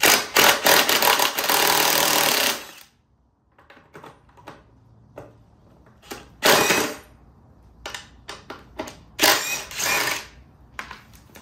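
Cordless impact driver with a 12 mm socket hammering loose the stock exhaust's mounting bolts on a scooter. One long burst of rapid impacts lasts nearly three seconds at the start, then two shorter bursts come about halfway and near the end, with light clicks from the socket and tool between them.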